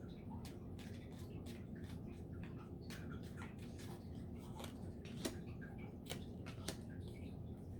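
Tarot cards being shuffled and drawn by hand: faint, scattered clicks and snaps of card stock, a few sharper ones about five and six seconds in, over a steady low hum.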